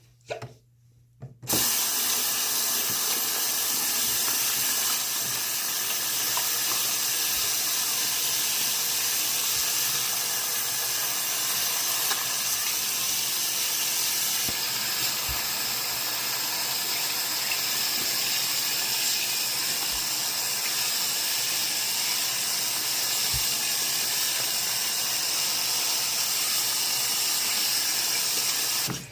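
Water tap running steadily into a sink, turned on about a second and a half in and shut off just before the end.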